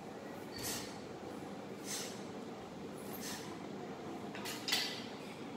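Four short swishes of kobudo weapons and a karate uniform moving through the air, about every second and a half, the last near the end the loudest. A steady fan-like room hum lies underneath.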